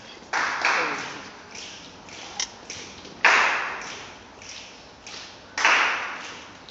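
Group body percussion: loud sharp hits in unison, a quick pair near the start, one a little after three seconds and another pair near the end, each ringing on in the hall, with quieter taps between them.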